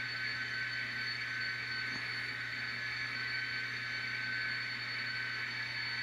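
Steady diesel engine sound from an ESU sound decoder in an N scale model diesel locomotive, played through its tiny onboard speaker, with a steady hiss and no change in pitch.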